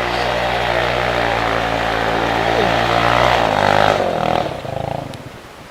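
ATV engine held at high revs, running hard and steady, then dropping away about four to five seconds in.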